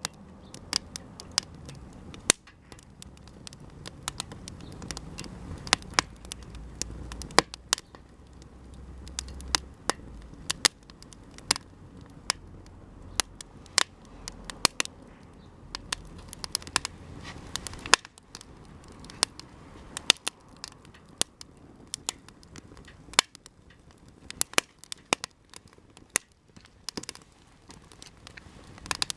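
Japanese cedar (sugi) offcuts burning in a campfire, crackling with many sharp, irregular pops.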